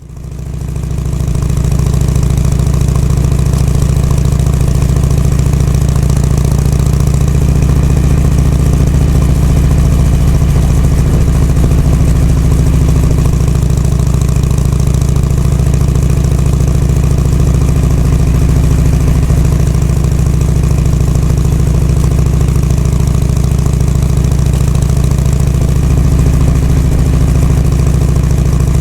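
Harley-Davidson Shovelhead FLH's air-cooled V-twin engine running steadily, fading in over the first second. The bike is being run in after a repair.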